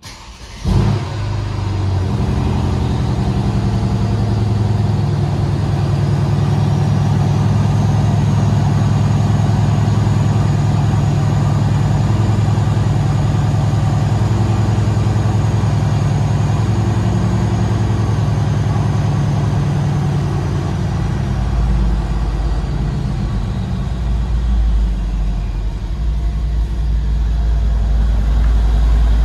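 Mercedes E63 AMG S 5.5-litre twin-turbo V8 cold-starting, heard from inside the cabin: a brief crank, the engine catches with a loud flare under a second in, then settles into a steady fast cold idle. The low rumble grows heavier in the last third.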